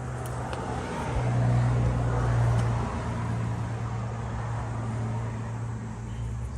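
A motor vehicle's engine running steadily with a low hum. It grows louder for about a second and a half, from about a second in, then settles back.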